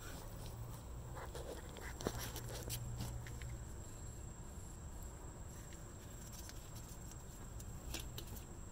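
A few light clicks and taps of a 17 mm combination wrench being handled against engine parts, over a faint steady low rumble.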